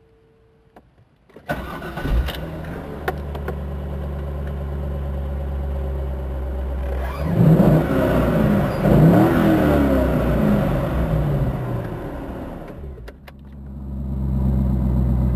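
C5 Corvette's 5.7-litre V8 starting about a second and a half in and settling into a steady idle, then revved up and down several times in the middle. It drops back toward idle and climbs again near the end.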